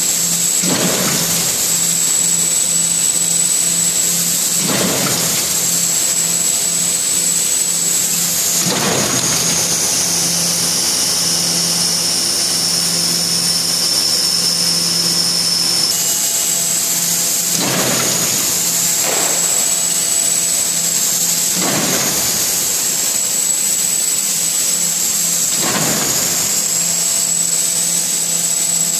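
Theisen & Bonitz Sprint collating machine running on test: a steady mechanical hum and a high whine, with a whoosh about every four seconds. Midway the whine drops lower for several seconds, then returns.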